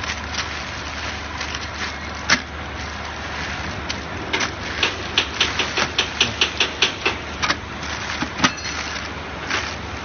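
A down-film flow-wrapping packing machine running, with a steady low hum and sharp mechanical clacks. The clacks are scattered at first, then come at about three a second through the middle.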